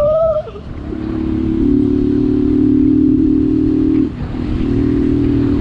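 Motorcycle engine running at fairly steady revs, with wind and road noise underneath. The engine note drops out briefly about four seconds in, then picks up again.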